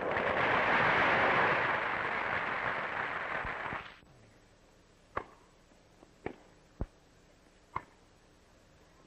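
A crowd applauding for about four seconds, cut off abruptly. Then sharp single knocks roughly a second apart: a tennis ball struck by wooden rackets in a rally.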